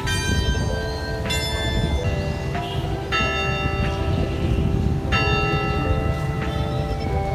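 Background music with bright bell-like chimes struck every one to two seconds, each ringing on, over a steady low backing.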